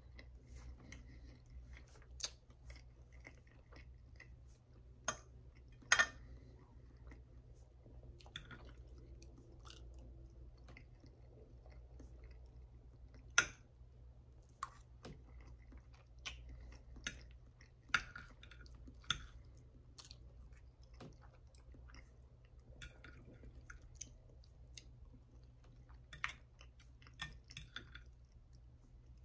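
Close-up chewing of soft breakfast food (waffle, eggs, hash browns), with a sharp click now and then as a metal fork taps and scrapes a glass plate.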